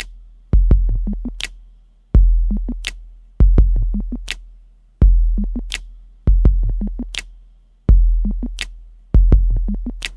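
Electronic drum-machine beat with no melody: deep bass kicks that ring on and slowly fade, about one every one and a half seconds, with a sharp snare-like crack and short ticks between them.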